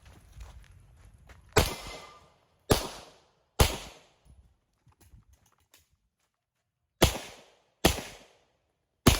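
Pistol shots fired in a course of fire: three shots about a second apart, a pause of about three seconds, then three more, each with a short echoing tail.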